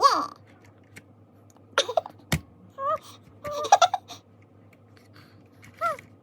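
A baby making short squealing giggles and babbling sounds, a few seconds apart, with a few sharp clicks in between.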